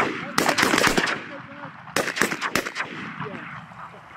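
Volley of shotgun blasts from several hunters' guns, in two quick bursts about two seconds apart, each shot echoing away.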